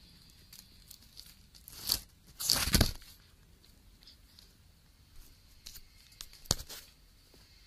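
Handling noise right on the camera's microphone as the camera is jostled and tipped: a short loud scrape about two seconds in, a longer scraping rustle just after, then a few sharp clicks near the end.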